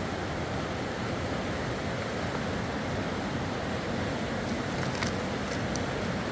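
Steady rush of fast-flowing river water, with a few faint clicks about four to five seconds in.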